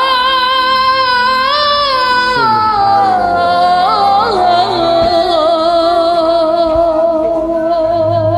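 Karaoke music from a devotional song: one long melodic line swoops up, slides slowly down with small turns, and then holds a note with vibrato over a soft backing.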